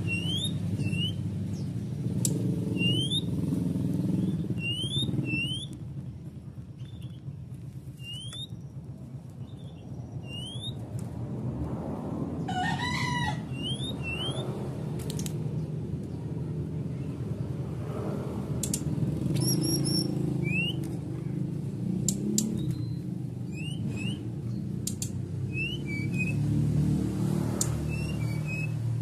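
Brown-chested jungle flycatcher in breeding condition calling: short, sharply rising whistled notes repeated roughly every half second to second, with a brief varied warble about halfway through. A steady low hum runs underneath.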